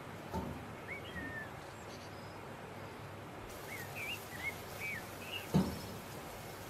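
Eggs frying with a steady soft sizzle as a wooden spatula stirs them in a nonstick pot, with two knocks of the spatula against the pan, the louder one near the end. Birds chirp in the background.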